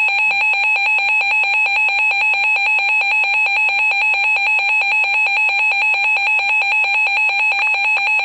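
Weather radio alert alarm sounding for a severe thunderstorm warning: a loud, high electronic beeping tone that pulses rapidly and evenly without a break.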